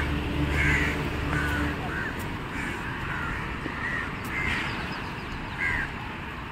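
Crows cawing, several short separate calls spread through. A low steady hum stops a couple of seconds in.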